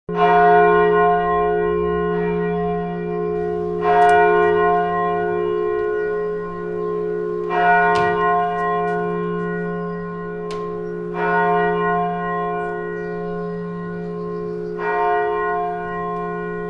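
A single church bell tolling, struck five times at an even pace of a little under four seconds, each stroke ringing on under the next.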